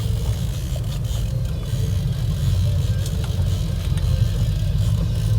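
Fishing boat's motor running steadily in gear at slow trolling speed: a continuous low hum, with a faint steady hiss above it.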